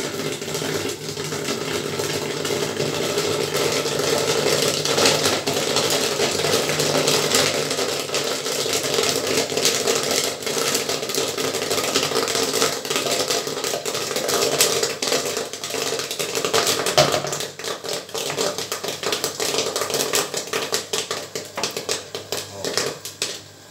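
Popcorn kernels popping in a gas-fired popcorn machine's kettle, a dense crackle of pops over a steady machine hum. The popping thins to scattered pops after about seventeen seconds, as the batch nears done.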